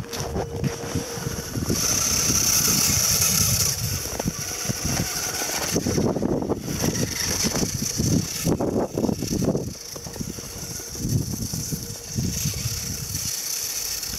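1/10-scale RC4WD FJ40 scale crawler driving over hard-packed snow: its small electric motor and geared drivetrain whir, loudest from about two to four seconds in, over the uneven crunch and rumble of the tyres on the crusted snow.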